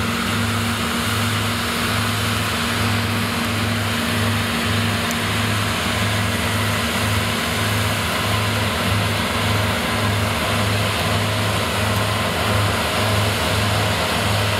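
New Holland combine harvester running under load while harvesting triticale: a steady mechanical drone with a low throb that pulses about twice a second, over a continuous rushing of threshing and straw-spreading noise.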